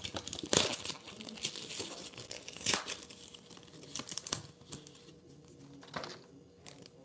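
Crinkly packaging, such as a trading-card pack wrapper, being handled and crumpled in irregular rustles. The rustles are loudest about half a second in and again near three seconds in, then thin out toward the end.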